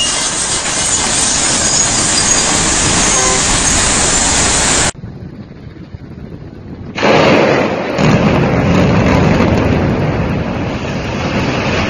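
Loud, dense noise from a demolition site that cuts off about five seconds in. About seven seconds in a sudden, loud rumble starts, deepening a second later, as a high-rise building collapses.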